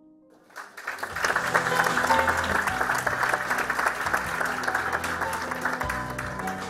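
Audience applauding, rising in about half a second in and holding, with music playing underneath.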